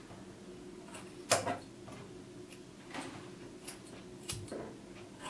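Grooming scissors snipping the hair around a dog's paw: a few sharp, spaced-out snips, the loudest about a second in.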